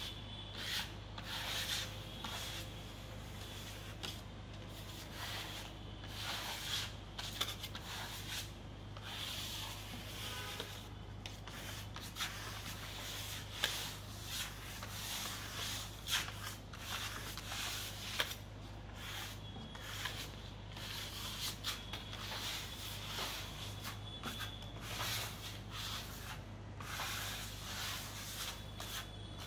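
Steel trowel and scraper spreading and smoothing wet screeding mix across a wall: a run of irregular scraping strokes, blade on coat, with two tools working at once.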